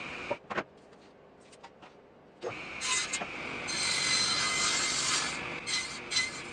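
Wood being worked with a hand tool: a few light knocks, then from about two and a half seconds in a rough scraping that turns into quick back-and-forth strokes near the end.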